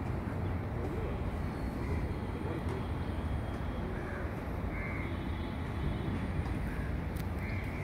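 Crows cawing a few times in short separate calls over a steady low background rumble.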